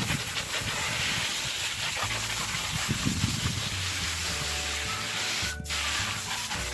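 Garden hose spraying water steadily onto a batch of freshly dug wild garlic bulbs to wash the dirt off, a loud hiss that breaks off for a moment about five and a half seconds in.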